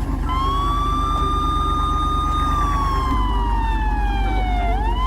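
Police car siren wailing: the tone rises, holds, falls slowly for about two seconds, then rises again near the end, over a steady low vehicle engine rumble.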